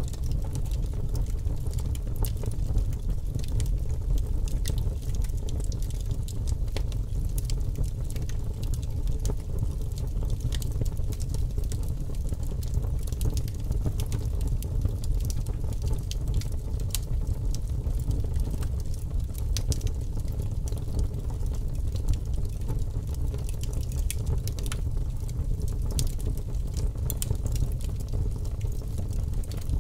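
Fire crackling, with frequent sharp pops and snaps over a steady low rumble.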